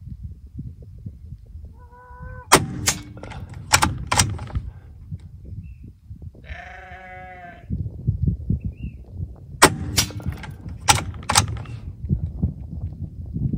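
Gamo Arrow PCP air rifle being shot and worked: two clusters of sharp cracks and clicks, about seven seconds apart, each a quiet shot followed by clicks of the action. Between them, about six seconds in, a farm animal bleats once.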